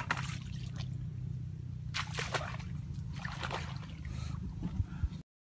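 A sharp click at the very start, then several short rustling, swishing bursts about a second apart as a person pushes on foot through brush, over a steady low rumble. The sound cuts off shortly before the end.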